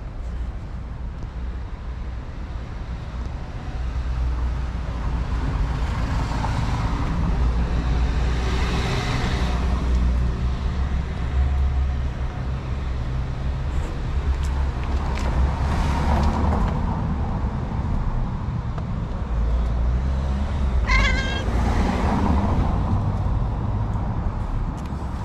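A cat meowing several times in drawn-out calls, the last with a wavering pitch, over a steady low rumble.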